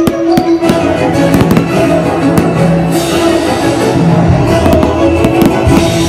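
Fireworks bursting in a rapid string of sharp cracks and bangs over loud orchestral music played through the display's sound system.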